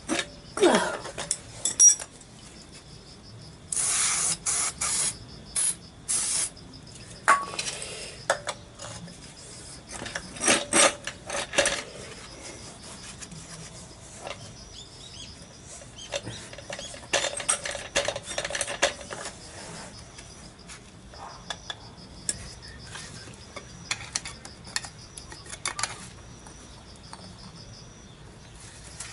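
Adjustable wrench and hand tools working a nut on a scooter's rear axle hub, giving bursts of metal clinking and scraping.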